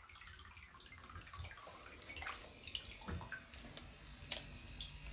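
Water splashing and dripping in a bathtub as a plastic bottle fitted with a small battery toy-boat propeller motor is moved about. About halfway in, a faint steady high whine of the little propeller motor comes in.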